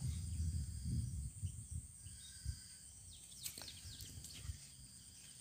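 Outdoor ambience with a steady, high insect drone. A low buffeting rumble, like wind on the microphone, is strongest in the first second and a half, and a brief cluster of bird chirps comes about three and a half seconds in.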